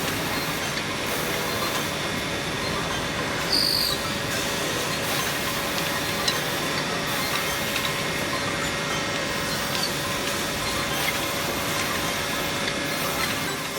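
Two-head automatic wood drilling machine running, a steady mechanical whir with faint steady tones, broken by one brief louder burst about three and a half seconds in.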